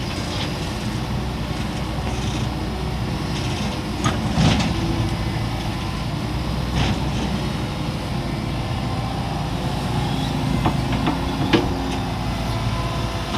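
Hitachi excavator's diesel engine running steadily while it works, with a few short knocks along the way.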